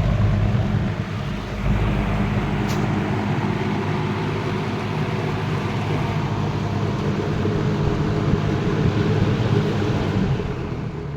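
1974 Lakewood S23 box fan running on high speed: a steady rush of air over the motor's hum. Near the end the motor hum stops and the sound begins to fade as the fan starts to spin down.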